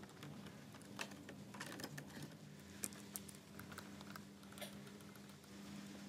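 Scattered small clicks and taps of a precision screwdriver and small metal and plastic parts being worked on a laptop's display assembly, over a faint steady low hum.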